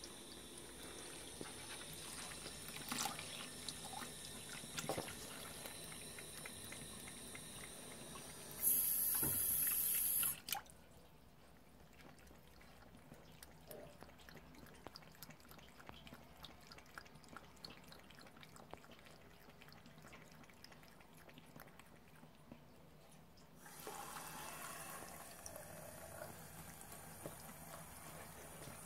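Thin stream of tap water trickling and dripping into a ceramic bathroom basin and its drain. About a third of the way through there is a louder hiss lasting about two seconds; after it the water sound drops away for a long stretch, and it picks up again near the end.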